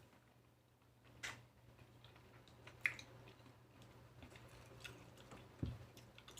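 Close-miked eating of lychees: scattered soft wet clicks and smacks of chewing, the sharpest about three seconds in, with a low thump near the end.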